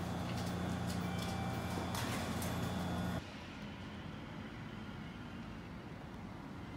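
Station concourse ambience: a steady low hum with scattered clicks. About three seconds in it cuts off abruptly to a quieter, even outdoor hum.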